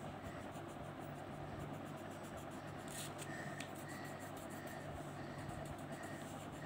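Faint scratching of a coloured pencil rubbing back and forth on paper in quick strokes, with a couple of light ticks about halfway through, over a steady low hum.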